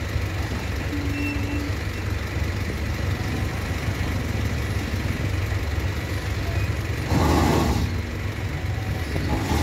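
Diesel engine of a loaded Ashok Leyland ten-wheeler truck running with a steady low rumble as it creeps around a tight hairpin bend. A louder hiss-like burst lasting under a second comes about seven seconds in.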